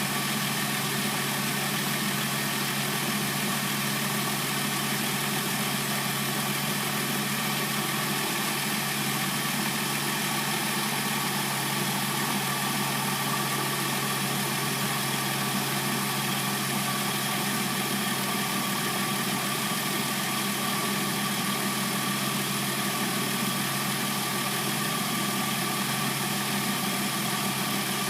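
Hyundai Sonata's replacement engine idling steadily as it warms up after a cold start. The sound does not change throughout.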